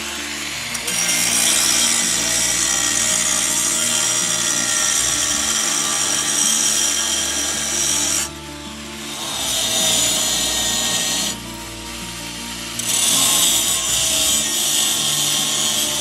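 A power tool running under load in three long runs with short breaks between them.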